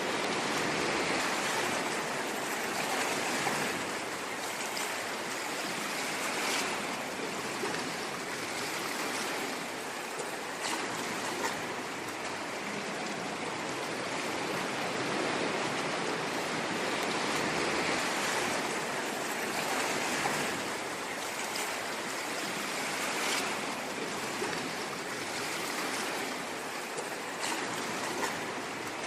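Ocean waves washing in: a steady rushing hiss that swells and eases gently, with a few faint short ticks here and there.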